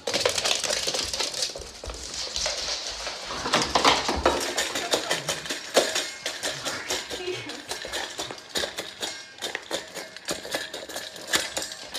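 A dog eating from a stainless-steel bowl: quick, irregular clinks and rattles against the metal, several a second.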